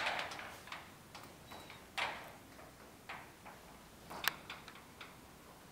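Scattered light clicks and scuffs at uneven intervals, loudest about two seconds in and just past four seconds, over a faint hiss, with no machine running.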